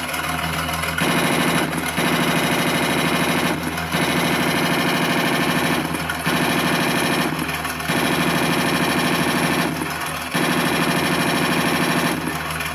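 Engine running sound from a 1/16 scale RC Jagdtiger tank's electronic sound unit, with small electric motors whirring. It comes in louder stretches of about one and a half to two seconds with short dips between, about six times.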